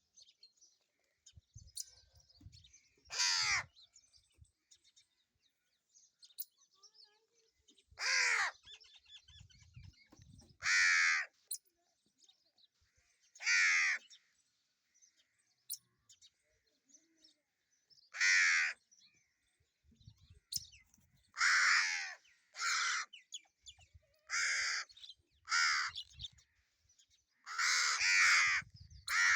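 Crows cawing. The single caws come several seconds apart at first, then closer together, with a quick run of calls near the end.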